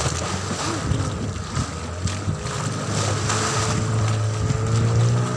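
A small boat's motor running steadily, picking up slightly in pitch and level about three and a half seconds in, under wind buffeting the microphone and the rush of choppy sea water.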